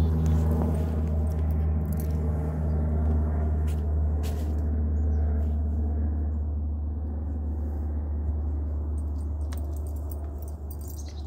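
A steady low hum, with a few faint clicks scattered through it.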